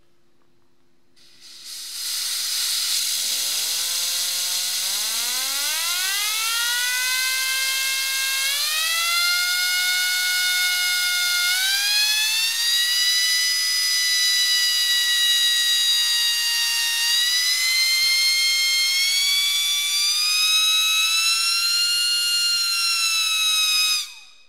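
Compressed air rushing out of a cylinder into a small hairdryer turbine driving a DC motor as a dynamo. The loud hiss of the air jet comes with a whine that rises as the turbine spins up, climbs in two more steps, then holds. Both cut off suddenly near the end as the valve is shut.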